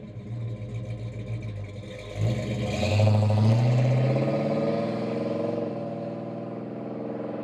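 Mopar B-body V8 through a Flowmaster H-pipe exhaust with Super 40 mufflers, running at a steady note. About two seconds in, a throttle blip makes the note rise, and it then settles back to a steady run.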